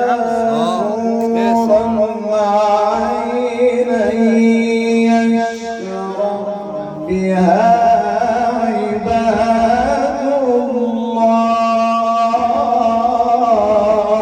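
A man's voice chanting Quran recitation in melodic tajweed style, holding long, ornamented notes that waver in pitch. The voice drops lower briefly about six to seven seconds in.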